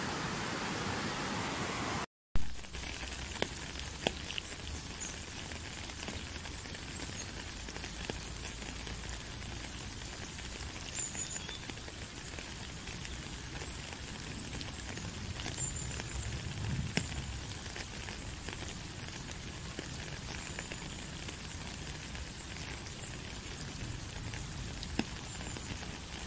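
Steady natural ambience of rushing, rain-like water noise with scattered small ticks and drips. About two seconds in it breaks off for a moment and a second, similar water ambience takes over.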